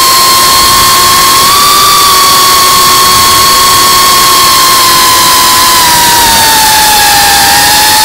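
The Geprc Cinelog35's brushless motors and ducted propellers whine at a steady high pitch, heard from the camera riding on the drone, under heavy wind and propeller hiss. The pitch sags slightly about six seconds in as the throttle eases.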